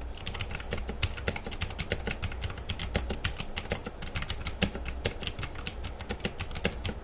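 Typing on a Gamdias Hermes E2 mechanical keyboard with clicky blue switches: rapid, continuous keystroke clicks.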